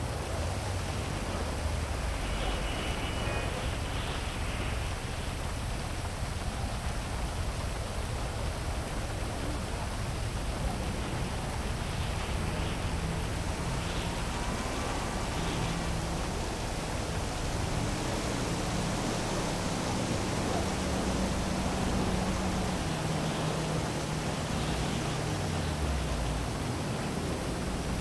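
Heavy rain falling steadily, with a low hum of city traffic underneath that slowly shifts in pitch.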